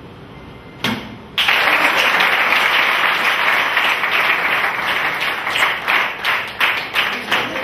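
A single thump about a second in, as bare feet land on a stack of plastic chairs, then a crowd bursts into applause that breaks into scattered separate claps near the end.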